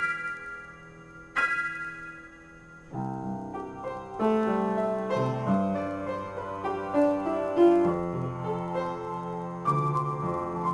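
Solo grand piano improvisation. Two ringing high chords are struck about a second and a half apart and left to die away, then from about three seconds in a busier passage of many notes in the middle and low register follows, with another high chord near the end.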